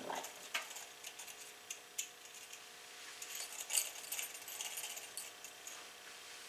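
Faint, scattered clinks and scrapes of a spatula against metal cake pans as cake batter is scooped from one pan and spread in another, a few sharper taps about two and four seconds in.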